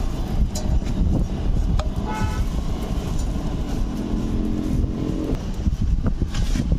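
Road traffic: a steady low rumble of vehicles with horns sounding, a short toot about two seconds in and a longer, lower horn from about four to five seconds.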